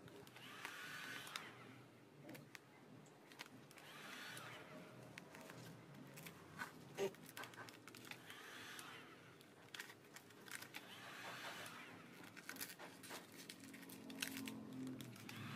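Faint rustling and crinkling of vinyl sticker film being handled, in soft swells every few seconds, with small scattered clicks.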